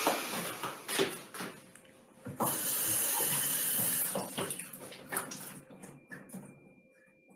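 Kitchen work: dishes and utensils clinking and clattering, with a water tap running steadily for about two seconds near the middle.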